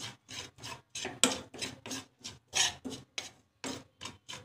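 Metal spoon scraping a small frying pan, stirring dry cumin seeds and ground spices in quick, even strokes of about four a second.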